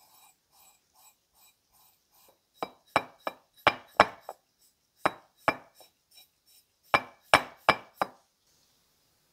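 A paintbrush stroking liquid cold bluing onto a sandblasted steel plate, soft and regular at first. From about two and a half seconds in, a run of about a dozen loud, sharp taps in irregular groups, stopping about a second before the end.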